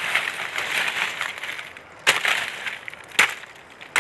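Leafy branches rustling as they are pulled and handled, then three sharp chopping cracks about a second apart as a blade cuts through the branch wood.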